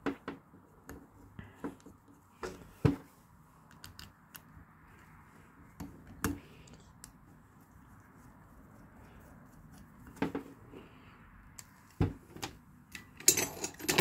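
Scattered light clicks and metal taps as a Honda VTEC spool valve solenoid assembly and its small parts are handled and fitted by hand, with a quick run of sharper clicks near the end.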